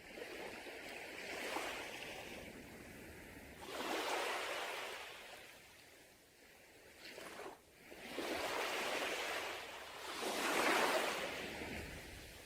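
Sea waves breaking and washing up a beach, a rushing surge that swells and fades about four times, the last the loudest.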